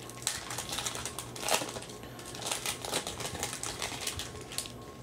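Foil wrapper of a Panini Chronicles football card pack being torn open and crinkled by hand, a run of quick crackles with the loudest about one and a half seconds in, as the cards are drawn out of it.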